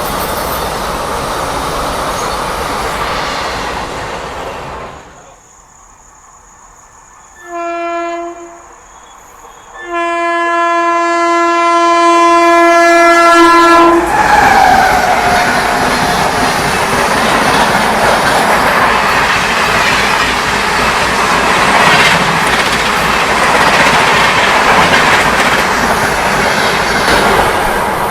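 Indian Railways locomotive horn sounding a short blast and then a long blast of about four seconds as an express train approaches at speed. Its pitch falls as the locomotive passes, followed by the loud rush and wheel clatter of the train running through the station without slowing. Earlier, the noise of a passing train fades away about five seconds in.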